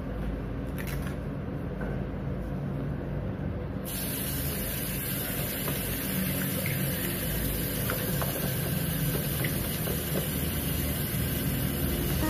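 Tap water starts about four seconds in and runs in a steady stream into a washbasin, splashing over hands held beneath it. A low steady hum runs underneath.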